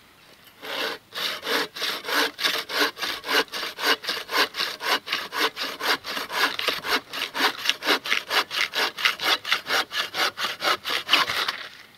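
Hand saw cutting through a small log with quick, even back-and-forth strokes, about three a second. It starts about a second in and stops shortly before the end.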